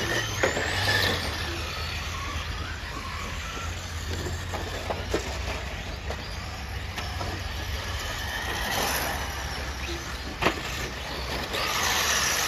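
Battery-electric RC rally cars racing on a dirt track: motor whine rising and falling as they speed up and slow down, over a steady low rumble. A few sharp knocks, the loudest about ten and a half seconds in.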